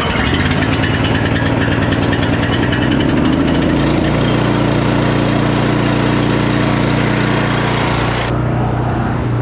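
Pressure washer's small engine running steadily with the hiss of the water spray. The hiss stops about a second before the end, then the whole sound cuts off.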